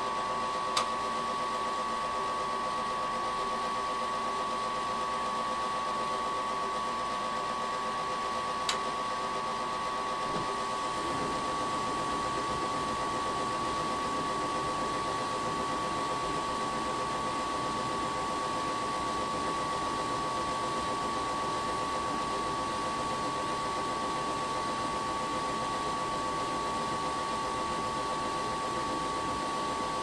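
Furnace fan motor running steadily, a hum with a high whine, with a couple of brief clicks near the start.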